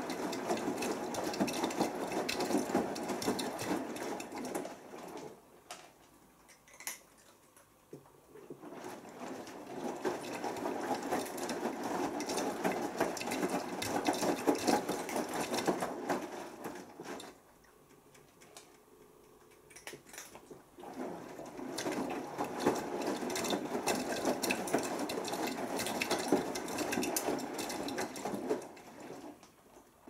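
Beko WMB81445L front-loading washing machine tumbling a wet load of clothes, its drum motor running and the water sloshing. The drum stops twice for about three to four seconds between turns, as it does when it reverses during the wash.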